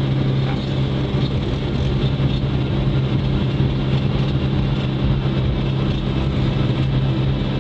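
ATV (quad bike) engine running with a steady, unchanging drone.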